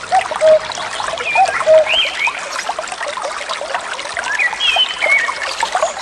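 Water trickling and splashing, with many short, high chirping calls over it.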